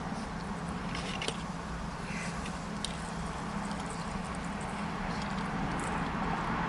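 Steady low hum of a car engine running at idle, with a few faint clicks and rustles over it.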